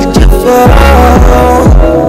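Electronic pop music with sustained chords over a deep thudding beat about twice a second.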